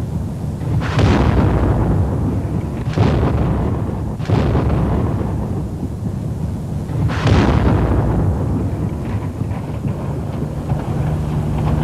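Artillery shells exploding: four heavy blasts, about one, three, four and seven seconds in, each trailing off into a long low rumble that carries on between them.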